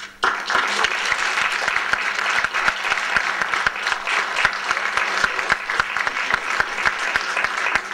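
Audience applause: many people clapping, starting suddenly a moment in and keeping up a steady, dense patter.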